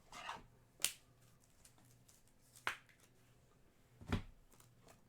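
Trading cards and rigid plastic toploaders being handled on a table: a brief slide at the start, sharp clicks about one and three seconds in, and a soft knock about four seconds in.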